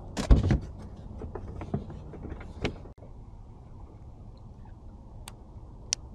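Knocks and thumps from a hard plastic ice chest as a fish is put in and the lid is handled, loudest about half a second in. After that comes a steady low wind and water noise on the boat, with two sharp clicks near the end.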